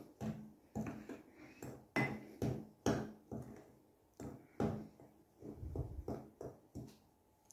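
A metal spoon stirring dry ground spice mix in a glazed ceramic bowl: scrapes and light clinks of the spoon against the bowl, about two a second.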